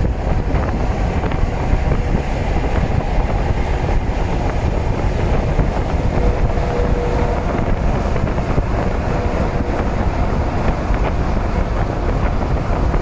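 Freight train cars rolling past, a steady loud rumble with wind buffeting the microphone.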